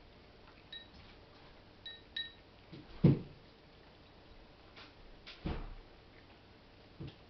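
A cat eating snow crab from a small plate, with scattered knocks and clicks as it chews and nudges the plate, a few with a short faint ring. A heavier thump comes about three seconds in and another about five and a half seconds in.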